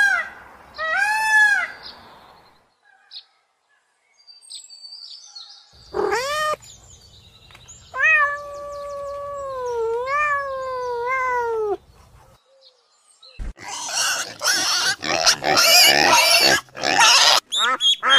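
A run of separate animal calls: two arched calls at the start, a long wavering call in the middle, then a loud harsh stretch and a fast series of short calls near the end.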